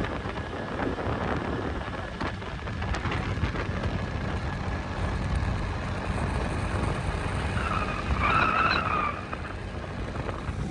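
Motorbike on the move, a steady low rumble of engine and road noise. About eight seconds in, a brief higher tone sounds over it.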